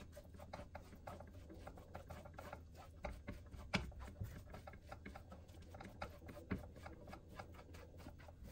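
Plastic spatula scraping and tapping on a hex-patterned hybrid frying pan while stirring finely chopped broccoli: light, irregular clicks and scrapes, several a second, with a few sharper taps.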